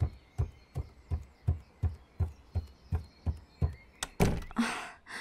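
Fast heartbeat sound effect, even low thumps about three a second, depicting a racing heart. A breathy exhale comes in near the end.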